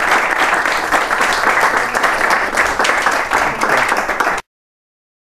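Audience applauding, a dense run of many hands clapping that cuts off suddenly a little over four seconds in.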